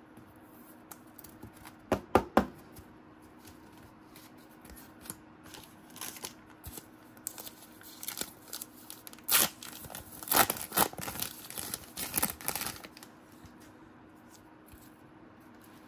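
A trading-card pack wrapper being torn open and crinkled by hand, in short sharp bursts: a few about two seconds in, then a busier run of tearing and crinkling about two-thirds of the way through.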